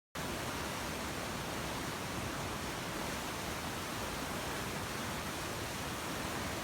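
Steady, even hiss of static-like noise that starts abruptly and cuts off abruptly.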